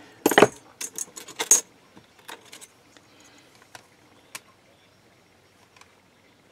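A metal clay-cutting blade being handled against the work surface: a knock right at the start, then a quick run of light metallic clicks and clinks in the first second and a half, trailing off into a few faint ticks.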